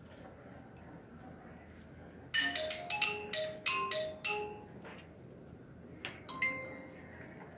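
A melody of short electronic chime tones: a quick run of about nine notes, a pause, then two or three more notes near the end.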